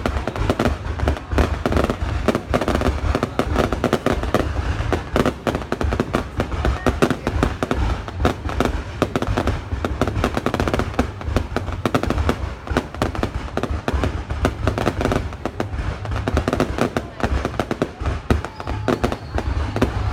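Fireworks display going off continuously: a dense, rapid run of bangs and crackles with deep booms underneath.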